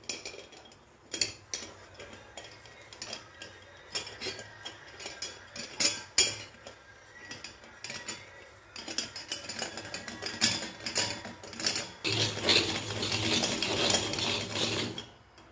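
Metal clicks and clinks of a stainless-steel hand-cranked coconut scraper being put together, its handle and serrated round blade fitted on. Near the end, a steady rasping for about three seconds as a half coconut is scraped against the serrated blade.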